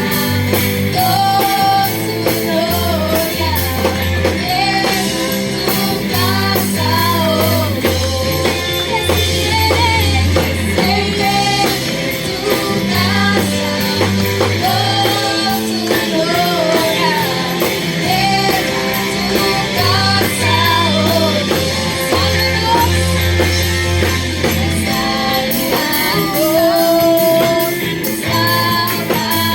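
Worship song with singing over a band: a strummed guitar, a steady bass line and a beat.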